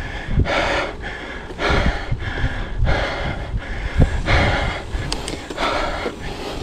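A mountain biker's heavy, rhythmic panting: about five hard breaths, a little over a second apart, from a rider out of breath while pedalling up a steep climb. A low rumble runs underneath.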